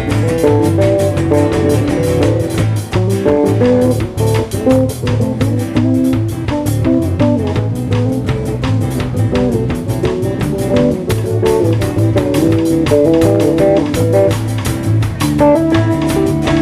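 Live band playing an instrumental jam: guitar and bass guitar over a drum kit keeping a steady beat.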